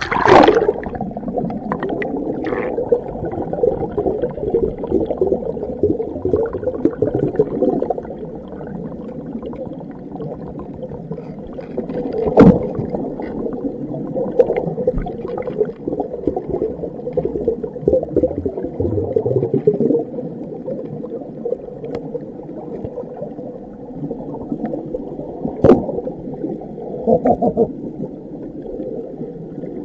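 Muffled underwater sound of a river heard from a submerged camera: steady gurgling and churning water, starting with a splash as the camera goes under. Two sharp knocks, about twelve and twenty-five seconds in, with lighter clicks of tools against the granite crevice.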